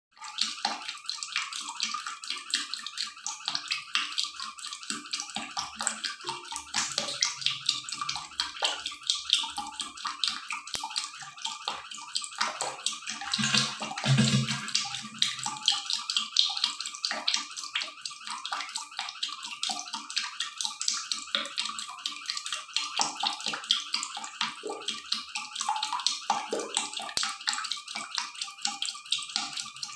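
Water running and splashing steadily, a continuous crackly splashing hiss full of small rapid spatters.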